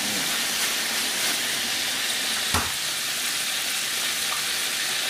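Chicken frying in hot oil, a steady sizzle, with a single knock about halfway through.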